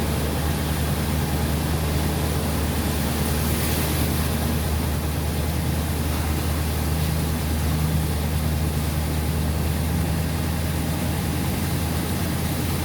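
Pickup truck engine running steadily at low speed, a constant low hum with no change in loudness.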